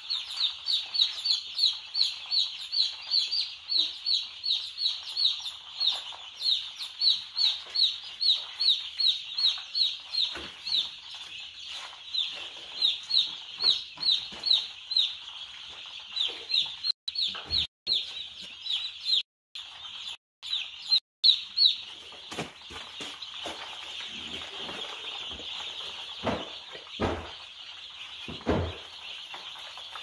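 A pen of day-old chicks peeping all together in a dense high chorus. Over it one chick calls loudly and over and over, about three piping peeps a second, each falling in pitch. The sound cuts out briefly a few times midway, and a few dull knocks come near the end.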